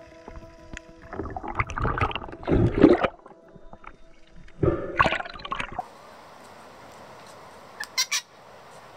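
Underwater water noise from an action camera: surges of rushing, bubbling water, the loudest at about two to three seconds and again around five seconds. About six seconds in it gives way to a steady outdoor hiss with a few short sharp calls about eight seconds in, where a bird sits in a tree.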